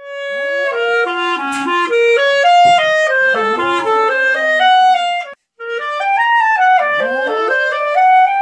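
Clarinet playing a quick melody of stepped notes, with a brief break about five seconds in and a long held note near the end. Over it, a Yorkshire terrier howls along in rising and falling glides.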